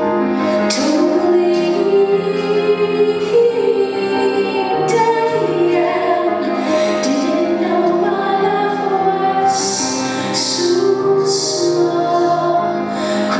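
A woman singing a slow song live, accompanying herself on keyboards, with held low notes under the sung melody and sharp sung 's' sounds about two-thirds of the way through.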